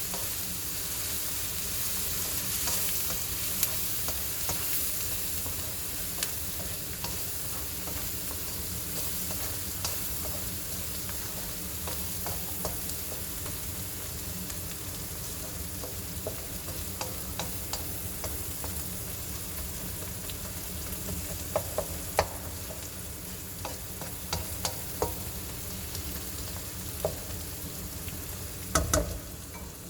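Onions frying in oil with turmeric and chili powder in a karai, sizzling steadily while a spatula stirs them, scraping and knocking against the pan, with several sharper knocks in the second half.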